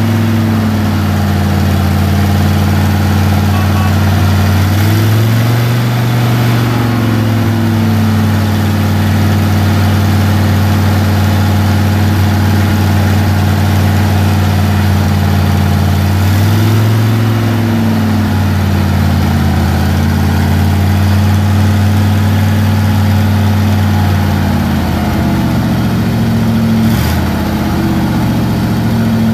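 1979 Ford 800 grain truck's eight-cylinder gas engine idling steadily, with the throttle blipped twice, about five seconds in and again about seventeen seconds in, the revs rising and settling back each time.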